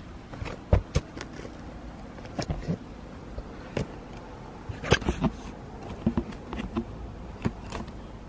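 Close, irregular thumps and scuffs from feet in socks stepping on dry dirt and from the phone being handled, over a steady outdoor background hiss.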